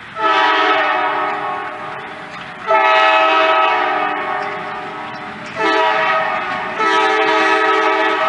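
GP9R diesel locomotive's multi-chime air horn sounding the grade-crossing signal as it approaches a road crossing: long, long, short, long. Each blast is a loud chord of several notes.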